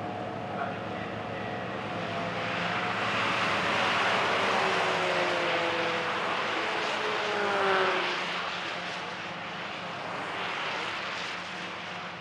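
Mazda Roadster (MX-5 Miata) race cars driving past at speed. A rush of engine and road noise swells about four seconds in and peaks again near eight seconds, the engine notes falling in pitch as the cars go by.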